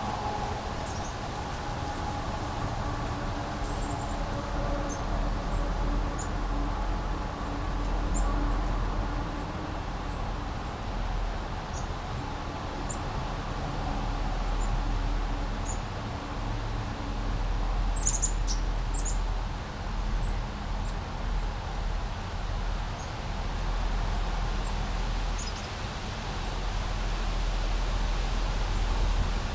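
Small brook flowing steadily, with brief high-pitched bird chirps scattered throughout and a low rumble underneath.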